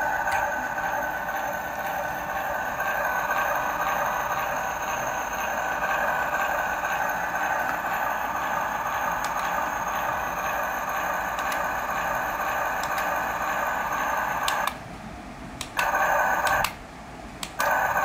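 Small electric motor of a toy remote-control spray car running steadily, cutting out twice for about a second near the end as the remote button is released and pressed again.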